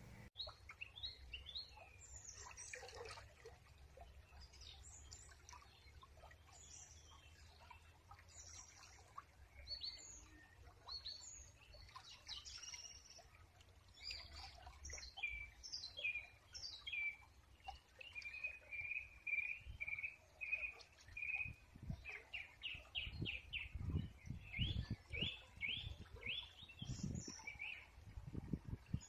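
Wild birds singing in woodland: many short high chirps and trills, with a run of evenly repeated single notes past the middle and a quick series of chirps after it. Low thuds and rumbles come in during the last third.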